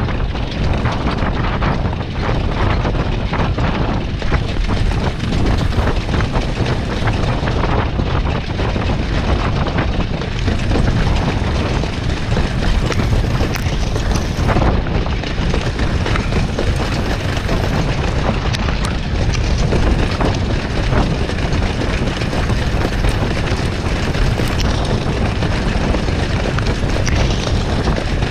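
Steady rush and rumble of wind on a sulky-mounted camera moving at racing speed behind a Standardbred in harness, with a constant rattle of hooves and sulky wheels on the dirt track.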